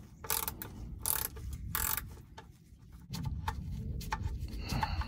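13 mm ratcheting wrench clicking on an oil drain plug as the plug is loosened: three short bursts of ratchet clicks about two-thirds of a second apart. About three seconds in they give way to lower rubbing and handling noise as the plug is turned out by gloved hand.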